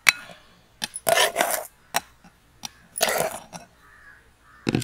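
Steel ladle scooping powdered sugar out of a steel pot and tipping it into a glass bowl: sharp metal clinks and two short gritty scrapes, about a second in and again about three seconds in.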